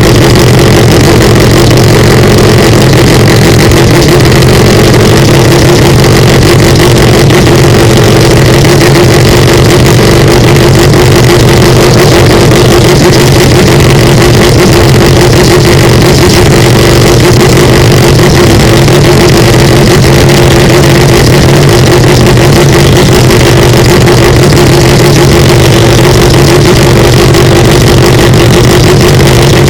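Mazda 787B's four-rotor rotary engine running with a steady, unchanging pitch, recorded at full scale so loud that it clips and distorts harshly.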